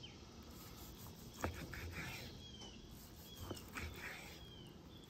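A kitchen knife slicing through a cooked ribeye on a wooden cutting board, the blade tapping the board twice. Faint short bird chirps sound in the background.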